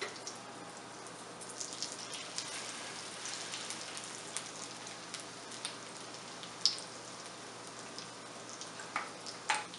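Egg-coated potato tikkis shallow-frying in hot oil in a pan: a steady sizzle with scattered crackles, and a few sharper pops about two-thirds of the way in and near the end.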